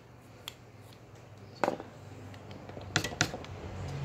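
Clicks and knocks of a metal tube and hard plastic toy-gun bolt parts being handled and pulled apart, with a louder knock about one and a half seconds in and two more close together around three seconds in.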